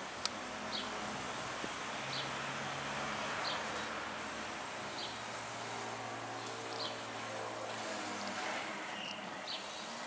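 House sparrows giving short single chirps every second or two, over a steady background hiss and low hum.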